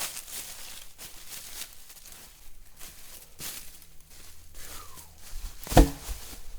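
Footsteps crunching through dry leaf litter, then one heavy thump near the end.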